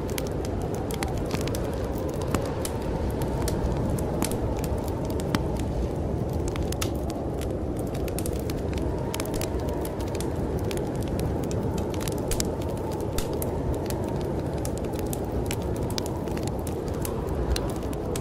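Wood fire crackling in a fireplace, with many sharp irregular pops, over the steady low rush of snowstorm wind.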